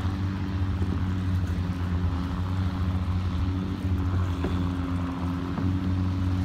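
Boat engine running at a steady idle, a low even hum.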